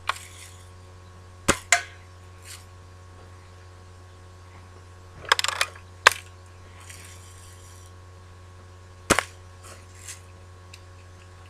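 Daisy Red Ryder lever-action spring-air BB gun fired at targets: sharp snaps spaced a few seconds apart, some with a quick second tick. A short clatter of clicks comes around the middle, over a steady low hum.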